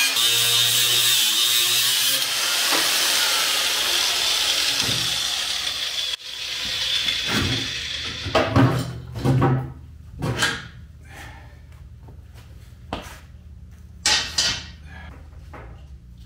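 A power tool runs steadily for about six seconds on the wheelbarrow's rusted-solid fasteners, then stops abruptly. Scattered knocks and clatters of parts being handled follow.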